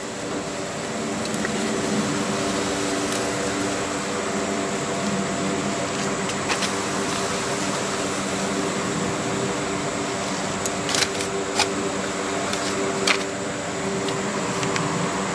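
Steady mechanical hum with several held tones, like a fan or air-conditioning unit running. A few sharp clicks in the later seconds, from metal barbecue tongs handling chicken on the smoker's grate.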